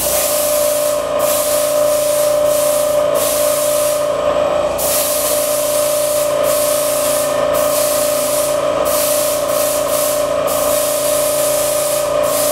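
An airbrush spraying paint, its hiss stopping for a moment every second or two as the trigger is eased off, over the steady hum of a small airbrush compressor running.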